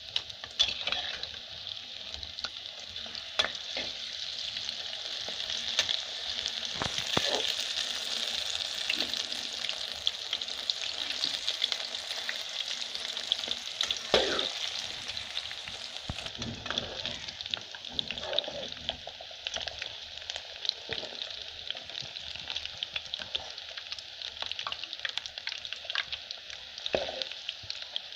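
Gram-flour-battered cauliflower florets deep-frying in hot oil: a steady sizzle full of fine crackles. A few louder knocks come from the metal spatula turning the pieces over.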